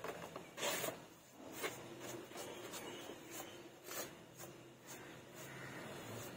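A brush rubbing over a painted canvas in a series of short, irregular strokes.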